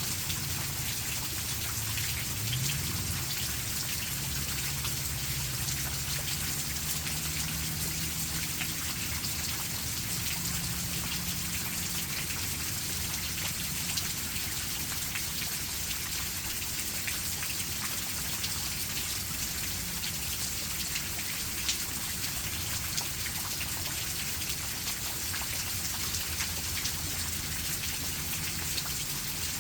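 Steady rain falling, a constant hiss with many separate drops ticking on a surface. A faint low hum sits under it in the first dozen seconds, with a brief rise in pitch a few seconds in.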